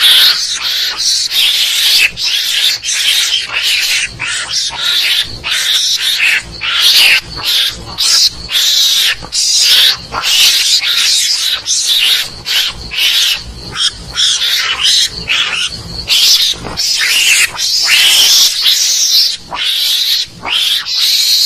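Loud recorded mongoose (garangan) calls played as a hunting lure: an unbroken run of short, harsh, raspy high calls, several a second, with only brief gaps between them.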